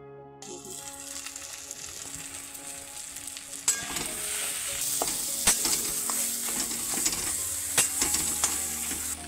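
Mashed potato sizzling in hot oil in a kadai, with a flat metal spatula scraping and clacking against the pan as the mash is stirred and pressed in. The sizzle starts about half a second in and grows louder. From about four seconds in, the spatula strikes come as a run of sharp clacks.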